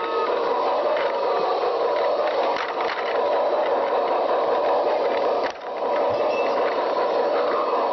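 A train running: a steady mechanical rattle with a brief break about five and a half seconds in.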